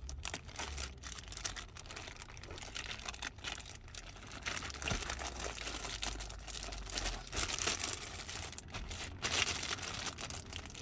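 Plastic wrapping crinkling and tearing as it is pulled off a new climate control panel by hand, loudest near the end.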